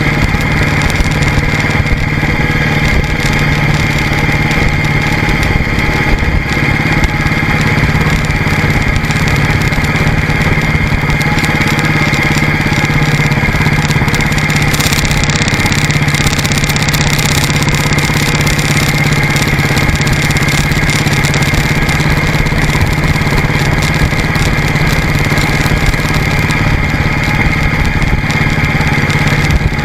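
Royal Enfield motorcycle engine running steadily as the bike cruises along a road, its even engine note holding without revving up or down.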